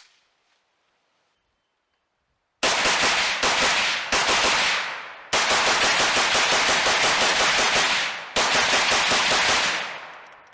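Rifle firing in three long, rapid strings of shots, each trailing off, after a couple of seconds of near silence.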